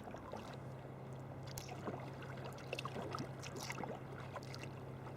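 Kayak paddle strokes on calm sea: soft splashes and drips of water off the blades, with a steady low hum that comes in about half a second in.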